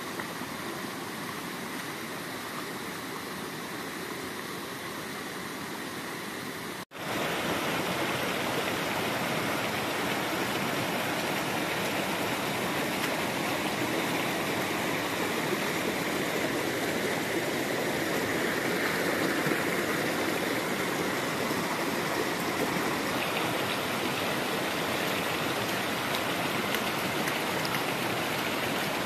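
Steady rush of flowing stream water. It drops out for a moment about seven seconds in and comes back louder.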